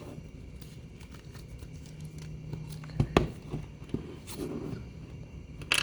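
Product packaging being handled during an unboxing: a few sharp knocks and clicks, two close together about three seconds in, another a second later and a louder one near the end, over a steady low hum.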